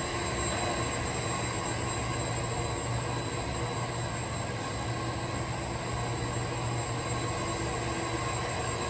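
Floor grinding and polishing machine working a terrazzo floor, running steadily with a constant low motor hum and a high whine.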